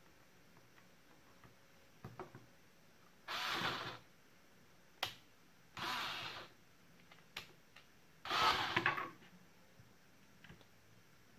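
TECCPO cordless electric screwdriver running in three short bursts, each under a second, driving screws into a cordless drill's plastic housing, with a few small clicks of handling between the bursts.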